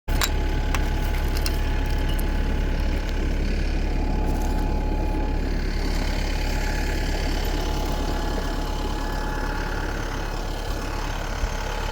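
A vehicle engine running steadily at idle, low and even throughout.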